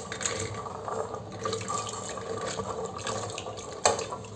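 Wet, soaked chickpeas tipped and pushed by hand from a steel container into a stainless steel pressure cooker, pattering and clicking onto the metal base, with one sharper knock just before the end.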